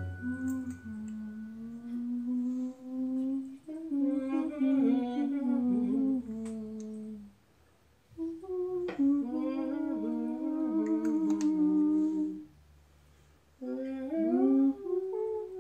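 A woman humming a slow, wordless tune with closed lips, in three long phrases separated by two short breaks.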